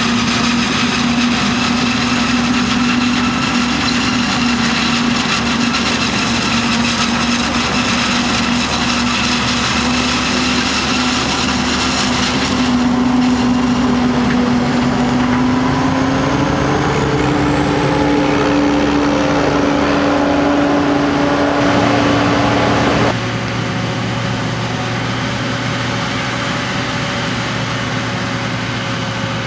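Forage harvester and tractor running side by side while chopping corn for silage: a steady, loud engine and chopper drone with a strong hum. The hum steps up slightly in pitch partway through, and the sound changes abruptly about 13 seconds in and drops in level about 23 seconds in.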